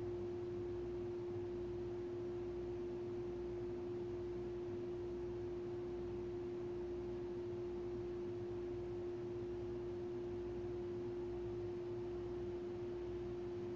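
A steady pure tone at one pitch, held unchanged without fading, over a faint low hum.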